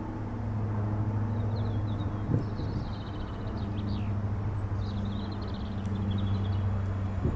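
Approaching Siemens Desiro electric multiple unit, a steady low hum. Small birds chirp in two short spells.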